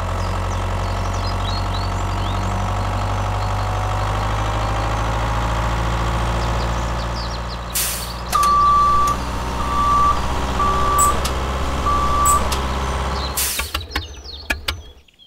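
Dubbed-in sound effect of a heavy diesel truck engine idling, with a hiss of air brakes about eight seconds in, four reversing beeps after it (the first longer than the rest), and a second air-brake hiss just before the engine cuts off near the end.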